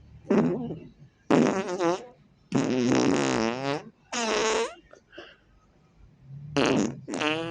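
A series of about six separate fart sounds, short and drawn-out, some with a wavering, bending pitch.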